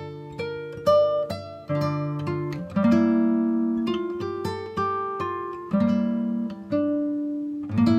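Background music on acoustic guitar: plucked notes and chords, each ringing and dying away before the next.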